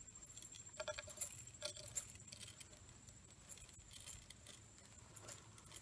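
Brown paper sack being torn and crumpled by hand into a wad for a muzzleloader: a scattering of faint crinkles and crackles, bunched about one to two seconds in with a few more later.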